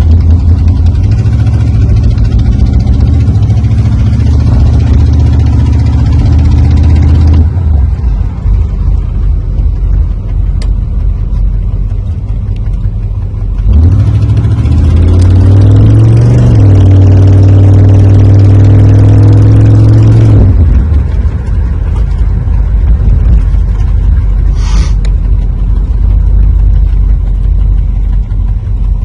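Chevrolet Camaro engine and exhaust held at raised revs, dropping back to idle after about seven seconds, then revved up again about halfway through, held for several seconds and settling back to idle. The owner suspects an exhaust leak.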